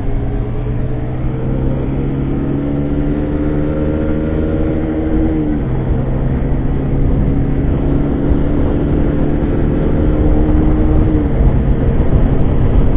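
Yamaha Factor 150 single-cylinder motorcycle engine pulling hard under full throttle at highway speed, its note climbing slowly and dropping sharply at an upshift about five seconds in and again near the end. Wind noise rises steadily as the bike gains speed.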